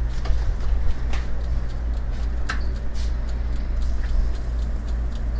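Steady low kitchen hum with a faint hiss, broken by a few light clicks of dishes or utensils.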